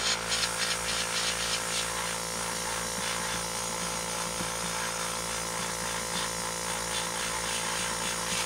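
Gravity-feed airbrush spraying acrylic paint: a steady hiss of compressed air from the nozzle, over the constant hum of the air compressor feeding it.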